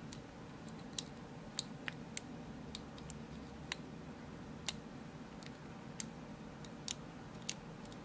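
Faint, irregularly spaced clicks of a hook pick working the pins inside a brass padlock during single pin picking, with a tension tool at the bottom of the keyway.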